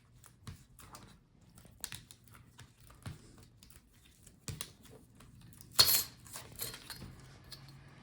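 Scattered light clicks and taps of hands working plastic laptop display parts, with one louder crackling snap about six seconds in.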